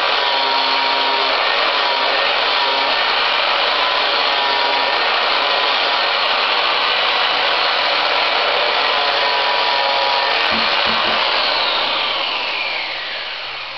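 Angle grinder with a flap disc sanding down the excess wood of an axe handle where it sticks out of the head: a loud, steady motor whine with grinding noise. Near the end the grinder is switched off and the whine falls in pitch and fades as the disc spins down.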